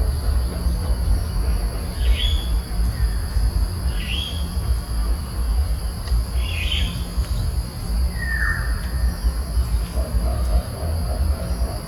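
Wild birds calling: four short downward-sliding calls about two seconds apart, the last one lower in pitch. Under them runs a steady high insect drone and a low rumble.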